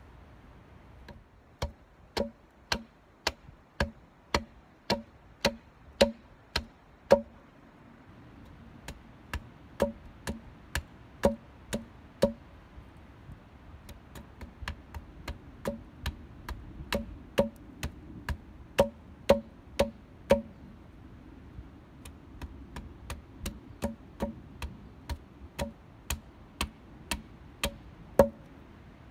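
Hatchet chopping at a wooden peg held upright, a sharp woody knock with each stroke. The knocks come about two a second in four runs, with short pauses between them.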